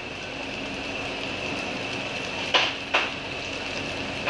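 Omelette frying in oil in a wok on a gas burner, a steady sizzle, with two quick knocks of the wok against the burner about two and a half seconds in as the pan is shaken to keep the egg from burning.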